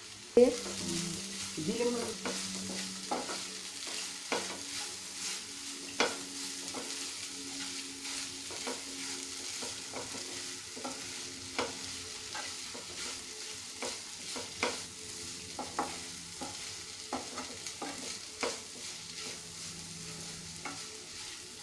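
Grated potato and onion filling frying in oil in a pan on a low flame: a soft, steady sizzle, with frequent irregular clicks and scrapes of a utensil against the pan as it is stirred.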